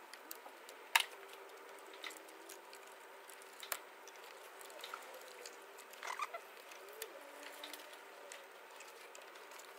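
Faint scattered clicks and small metallic knocks of a spanner and the timing-belt tensioner as the tensioner nut is slackened and the cam belt worked off. The sharpest click comes about a second in, with another about four seconds in and a few more near six seconds.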